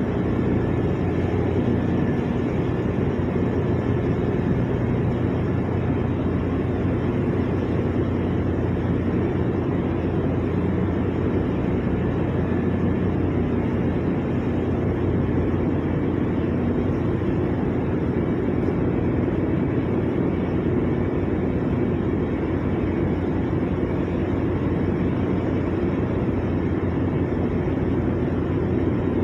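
Steady low drone of a ship's engines and machinery, unchanging throughout.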